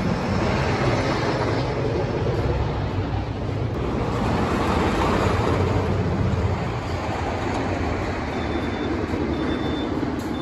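Train of a GCI wooden roller coaster running along its wooden track: a steady loud roar, swelling about halfway through and easing slightly near the end.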